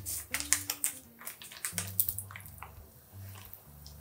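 Thick squid ink pasta sauce being squeezed out of a pouch onto spaghetti: a run of sharp wet clicks and splats, thinning out near the end.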